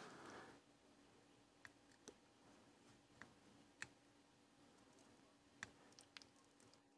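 Near silence: faint room tone with a low steady hum and about six light, scattered clicks as a soldering iron tip and solder wire work the pins of a small connector on a circuit board.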